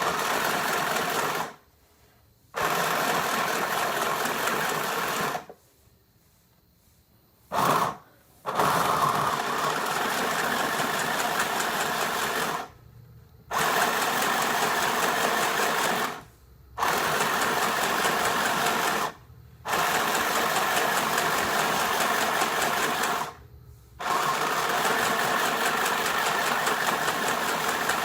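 Mini portable electric sewing machine running in spurts of a few seconds, with short stops between, about seven runs in all, as it is tried out stitching.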